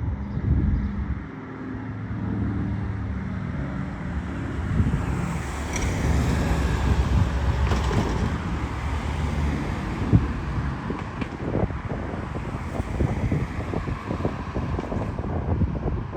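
Low engine drone from a Douglas Dakota's twin radial engines during a flyover, swelling in the middle, with wind buffeting the microphone throughout.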